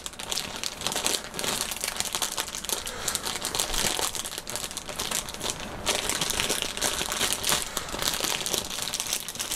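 Clear plastic wrap crinkling and rustling as it is handled and pulled away from the packaging.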